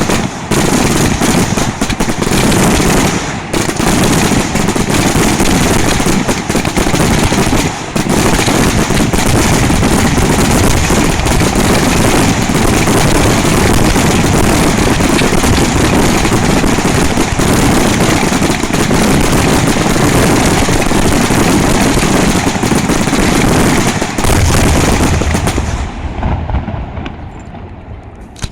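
Fireworks display: a dense, continuous barrage of shell bursts and crackling reports that dies away over the last few seconds, with one last single bang near the end.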